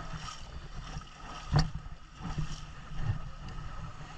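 Wind buffeting a phone microphone as a low, uneven rumble, with a sharp knock about a second and a half in and a couple of softer ones later.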